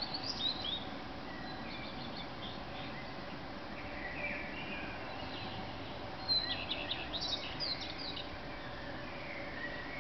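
Male common redstart singing short, quick high song phrases, one right at the start and a louder one about six seconds in, with softer, more distant bird song between them. Steady faint background noise underlies it.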